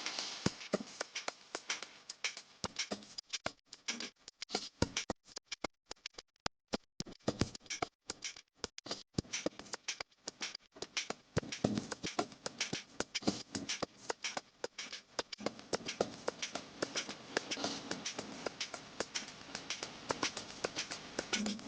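Food frying in hot oil in a pan: irregular crackles and pops, sparser for a few seconds and then thicker again.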